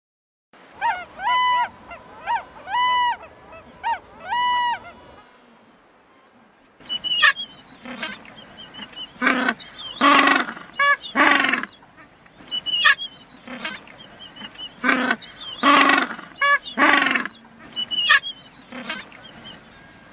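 Animal calls: a run of about five short, pitched honking calls, then after a short pause a busier series of many calls, some shrill and some lower.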